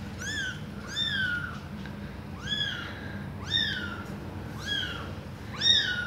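Newborn kitten mewing: six short, high calls that each rise and then fall, the last one the loudest.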